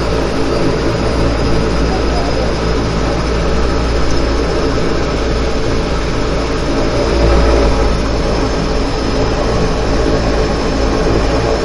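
A de Havilland Canada DHC-6 Twin Otter's Pratt & Whitney PT6A turboprop engines running steadily, heard from inside the cockpit as a dense drone with a thin high whine. The low rumble swells briefly about seven seconds in.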